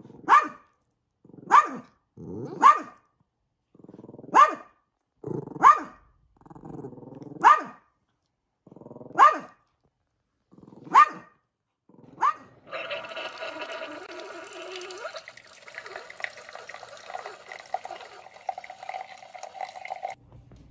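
A small dog barking sharply, nine barks about every one to two seconds, with low growling between them during play. Then a single-serve pod coffee maker brewing into a mug, a steady hiss and hum that stops suddenly near the end.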